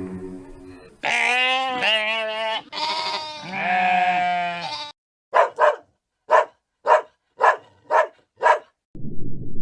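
A goat bleating in several long, wavering calls, followed by a dog barking seven times in a steady series, about two barks a second.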